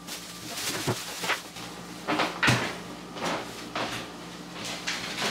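A refrigerator door being opened and things being handled around it: a string of separate knocks and clatters, the sharpest about two and a half seconds in.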